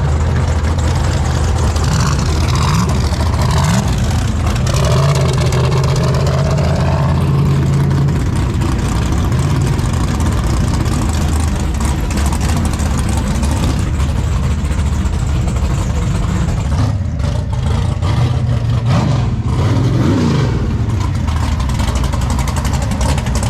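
Drag race car engines running loudly, with a few short revs.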